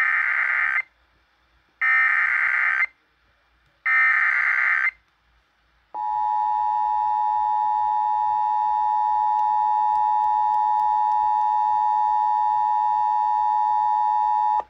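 Emergency Alert System activation tones: three roughly one-second bursts of SAME digital header data about a second apart, then the steady two-tone EAS attention signal from about six seconds in, held until it cuts off suddenly at the end. The tones mark the start of an emergency alert, here a severe thunderstorm warning.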